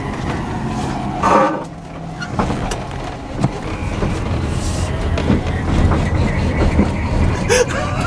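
Cab interior of a lowered electric mini truck driving: steady rumble of tyres and road with a few sharp knocks, and no engine note. The tyres are rubbing against the fenders, the sign that the truck now sits too low for its tyres.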